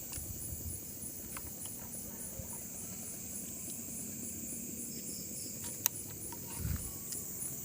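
Night insects, crickets, chirping in a steady, evenly pulsing high trill. A single sharp click sounds about six seconds in.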